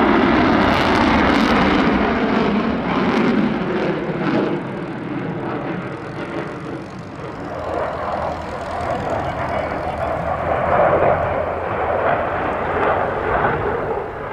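Jet noise from a Eurofighter Typhoon FGR4's twin Eurojet EJ200 turbofans as it banks through its display. The roar is loud at first, dips about seven seconds in, then builds again.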